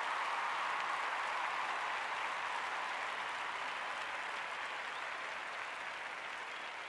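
Crowd applause, strongest near the start and slowly dying away.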